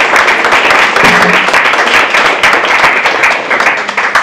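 Audience applauding: many people clapping at once, a dense, loud patter that starts to thin out near the end.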